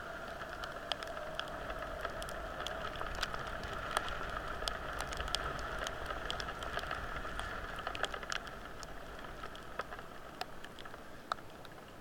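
Steady rain, a continuous hiss with many sharp, irregular ticks of individual raindrops striking close by.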